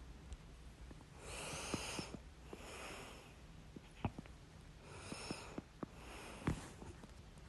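A person's hiccups: short sharp hiccup sounds, the two strongest about 4 and 6.5 seconds in, with noisy breaths between them.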